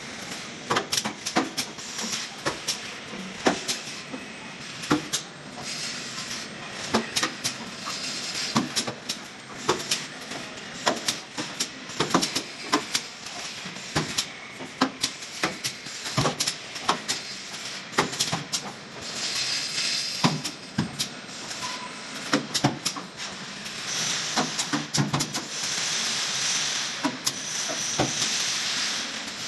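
Robotic stud welding on a car body line: sharp cracks of the stud welds, one or two a second at irregular intervals, over machine noise, with stretches of hissing air past the middle and near the end.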